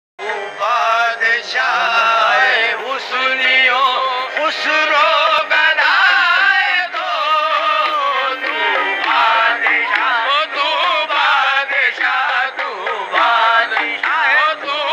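A song with a lead voice singing long, ornamented lines whose pitch bends and wavers, in a South Asian or Middle Eastern devotional style.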